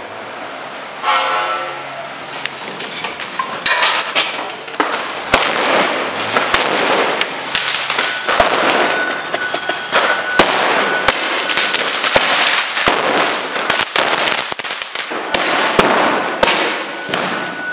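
Fireworks and firecrackers going off in a street clash: many sharp bangs and crackling pops in quick succession over a dense hiss, with a steady high tone coming in about halfway through.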